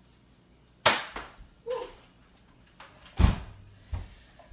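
Two sharp snaps about two and a half seconds apart, with fainter knocks between: Nerf blasters firing and foam darts hitting.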